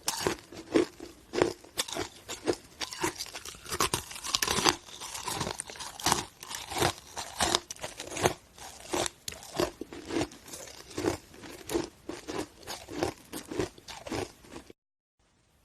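Hard chunks of ice being bitten and chewed close to the microphone: a rapid run of sharp, crisp crunches, a few each second, that cuts off abruptly near the end.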